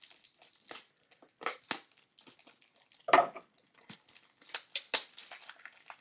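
Plastic packaging crinkling and rustling as it is handled, in short, scattered bursts.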